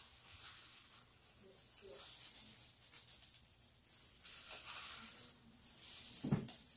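Steady faint hiss with scattered soft handling noises as cantaloupe slices are set around a plate, and one short low knock about six seconds in.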